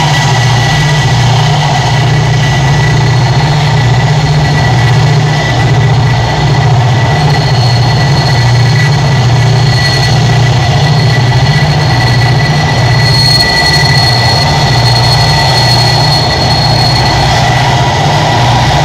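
Diesel locomotives and rolling freight cars passing, with a loud, steady low engine drone that throbs regularly. A thin high wheel squeal sounds over the middle of the passage.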